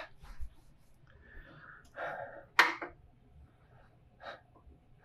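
Mostly quiet, with soft breathy sounds and a sharp metallic clink of a socket ratchet wrench about two and a half seconds in, then a lighter click near the end.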